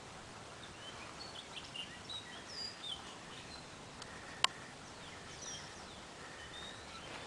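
Faint, scattered bird chirps and short whistles over a steady background hiss, with one sharp click a little past the middle.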